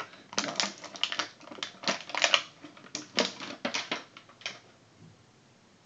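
Clear plastic toy packaging crinkling as it is handled: a quick run of irregular sharp crackles that stops about four and a half seconds in.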